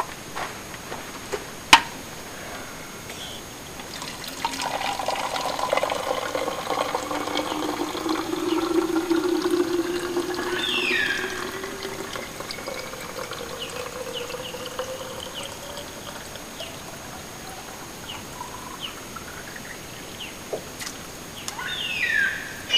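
Water running from a rainwater tank's tap into a bottle, the pitch of the filling rising steadily as the bottle fills; the flow is strongest in the first half. Birds call with short falling chirps midway and again near the end.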